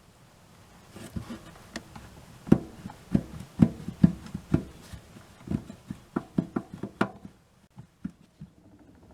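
Irregular sharp knocks and clicks of hard dryer parts being handled and knocked together during disassembly, loudest in the middle.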